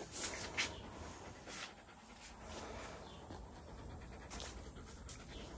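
Eleven-month-old Kangal dogs panting close by. A few short noisy scuffs come through, the loudest in the first second.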